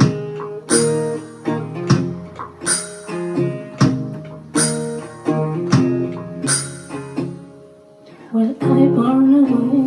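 Acoustic guitar played solo: a full strummed chord about every two seconds, with single notes picked in between. Near the end a voice comes in over the guitar.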